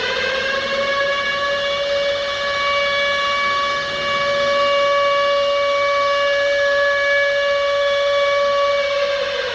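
Civil defence air-raid siren wailing as an attack warning: its pitch finishes rising just after the start, holds one steady note, and begins to fall near the end.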